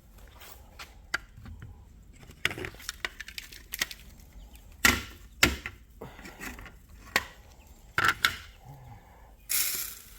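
Irregular clicks, clatters and knocks of a chick feeder being handled and refilled one-handed, with the sharpest knocks about five seconds in and again near eight seconds, and a short rustling burst near the end.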